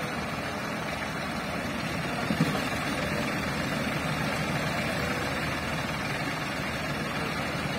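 Ford farm tractor diesel engines running steadily while pulling a loaded sand trolley stuck in wet sand.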